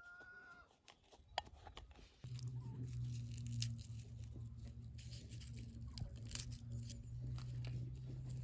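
A few sharp clicks of a pestle in a small stone mortar, then papery crackling and small clicks as a garlic clove is peeled by hand. A steady low hum comes in about two seconds in and stays under the crackling.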